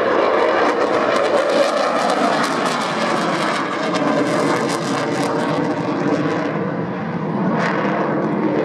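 Eurofighter Typhoon's twin Eurojet EJ200 turbofans, loud, as the jet flies a display pass overhead. There is a dense crackle through the first six seconds, easing a little after.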